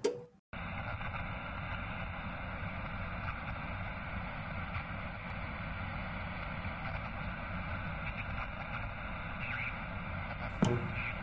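Steady hiss of analog static, like a worn VHS tape or a radio between stations. It starts with a click about half a second in, and there is another click near the end.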